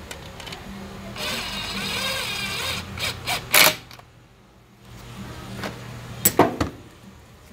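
A ratchet with a long extension and socket working on bolts in a Subaru FB20 engine block, with a few sharp metal clinks, the loudest about halfway through and two more near the end, over a steady low hum. The bolts are only being run down, not yet torqued.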